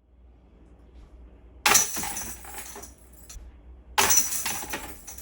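Two putts striking the chains of a Dynamic Discs Scout portable disc golf basket, about two seconds apart: each a sudden metallic clash followed by about a second of jangling chains.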